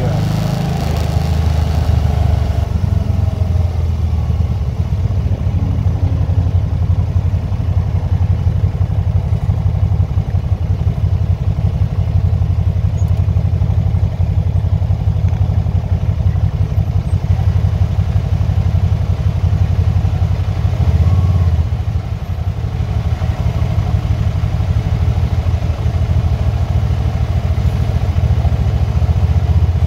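Can-Am three-wheeled motorcycle engine running steadily with a deep low rumble. It swells briefly about two-thirds of the way through, then eases back.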